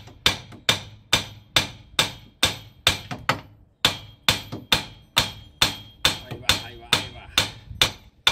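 A hammer striking the lower end of a minivan's front strut, metal on metal, a steady run of ringing blows about two and a half a second with a brief pause about three and a half seconds in, knocking the strut down out of the steering knuckle.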